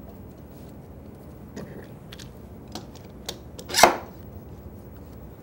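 A clamp being set and tightened on a board on a drill press table: a few light clicks and knocks, then one sharp, louder clack a little before four seconds in.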